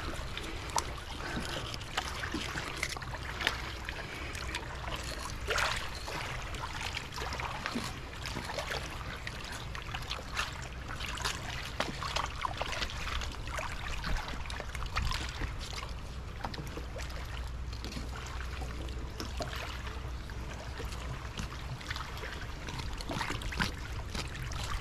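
Water trickling and lapping with a steady low rumble, broken by scattered brief knocks and scrapes.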